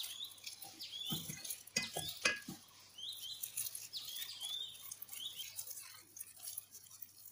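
Hands in thin plastic gloves pressing and spreading sticky cooked rice over a nori sheet on a bamboo rolling mat: soft pats and rustles, with a few louder knocks between about one and two and a half seconds in. A bird chirps repeatedly in short, quick notes in the background.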